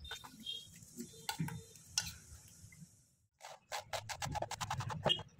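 A metal spoon scraping and tapping on a steel plate as raw chicken pieces are turned in seasoning, with scattered clicks. After about three seconds, a knife chopping leafy greens on a plastic cutting board takes over: quick knocks, about five a second.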